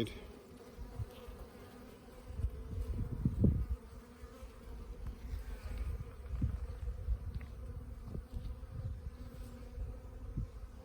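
Honey bees buzzing around an opened hive, a steady hum, with irregular low rumbles mixed in, the loudest about three seconds in.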